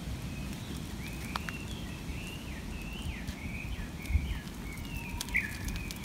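Japanese bush warbler (uguisu) calling in a long, fast run of short repeated chirping notes, starting about a second in, over a low rumble.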